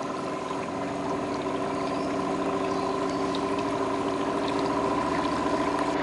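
Small boat's outboard motor running steadily with an even hum, gradually getting a little louder.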